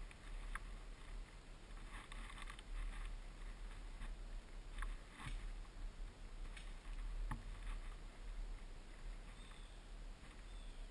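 Faint rustling of vegetation and clothing as someone moves through undergrowth, with a few scattered sharp clicks and snaps, over a low steady rumble.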